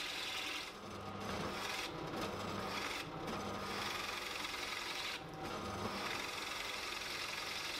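Benchtop drill press boring a hole in a block of celery top pine with a Forstner bit, a steady rasping cut of wood that dips briefly a few times as the feed is eased.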